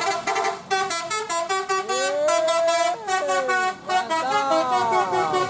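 Telolet Basuri multi-tone bus horn playing a melody: fast chopped, repeating horn notes, with sliding pitch glides in the middle and again near the end.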